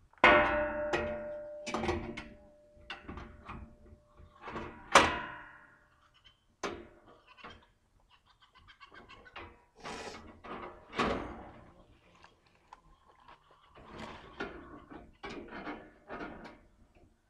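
Metal clanking and rattling as a new steel band blade is worked into a portable band sawmill's steel blade housing and onto its wheels. A loud clang right at the start rings on for a few seconds, another sharp clang comes about five seconds in, and lighter clatters follow.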